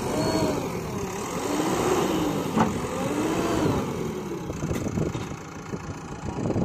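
JCB backhoe loader's diesel engine revving up and down over and over as it works, with a sharp knock about two and a half seconds in.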